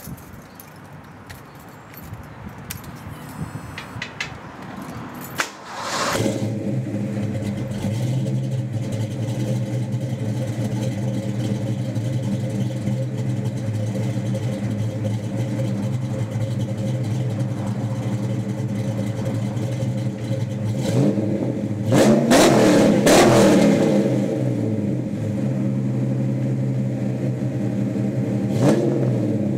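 1986 Ford Mustang 5.0 V8 with a BBK H-pipe and Super 44 mufflers: a few light clicks, then the engine starts about six seconds in and settles into a steady idle. The throttle is blipped with a rise and fall in revs about two-thirds of the way through and briefly again near the end.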